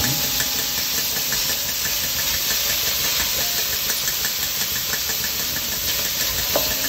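Sliced onions sizzling steadily in hot oil in a stainless-steel wok while being stirred with a wooden spoon. The wok gives a brief metallic ring as it is knocked at the start and again near the end.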